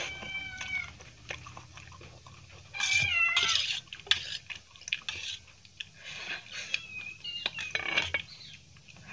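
A cat meowing a few times, the loudest call about three seconds in. Metal fork clinks and scrapes on a steel plate, with chewing, run through it.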